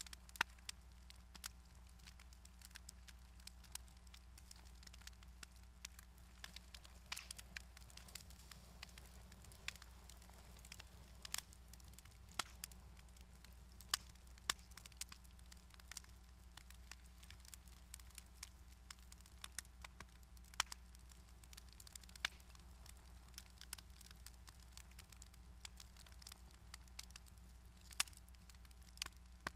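Fire crackling in a glass-fronted fireplace: faint, irregular sharp pops and clicks over a low steady hum.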